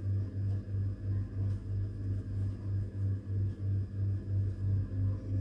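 Low electrical hum that swells and fades about two and a half times a second, with a few faint light ticks over it.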